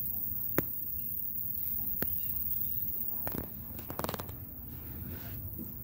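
Low, uneven rumble of wind on the microphone, with a single sharp click about half a second in, another about two seconds in, and a quick clatter of small clicks around the four-second mark.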